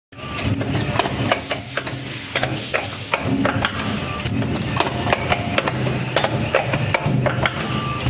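Fully automatic wire strapping-buckle making machine running: a quick, irregular series of sharp metallic clicks and clacks from its forming tooling over a low machine hum.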